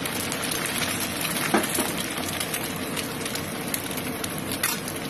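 Egg frying in hot oil in a wok with sliced onions and dried shrimp: a steady sizzle full of crackling spatters, with a couple of louder pops about a second and a half in and near the end.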